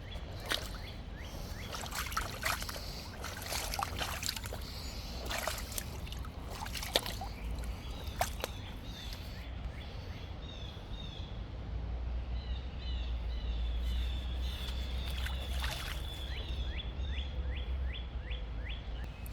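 Footsteps sloshing through shallow water and mud, several uneven splashes in the first half. In the second half a bird sings a rapid series of short, downward-sweeping notes, with a low rumble underneath.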